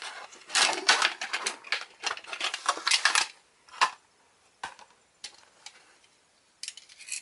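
Clear plastic blister packaging crackling and crinkling as it is pulled open by hand for about three seconds, then a few separate clicks and crackles as the plastic pieces are handled.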